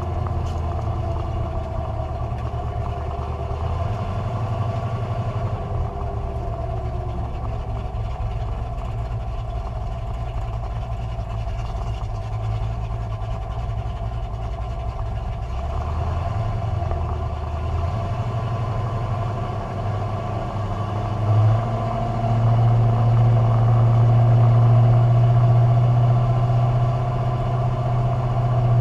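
Carbureted drag car engine idling steadily, running louder in the last third.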